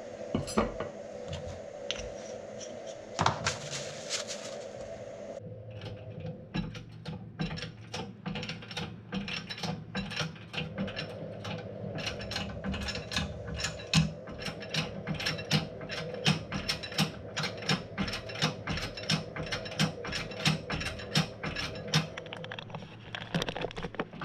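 A ratchet clicking steadily, about three clicks a second, starting a few seconds in, as the hydraulic cylinder is drawn back together slowly instead of being knocked in with a hammer.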